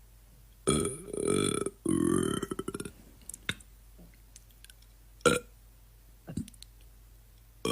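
A man belching: two drawn-out burps one right after the other, the second breaking into a rattling stutter, followed by a few short, sharp sounds.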